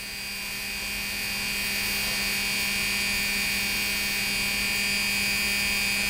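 Electric motor of a PFAFF 332 sewing machine running flat out on the bench under an electronic foot controller, a steady hum and whine that grows a little louder over the first two seconds and then holds even. Absolutely steady with no flutter, the sign of a freshly cleaned and tuned motor getting full power.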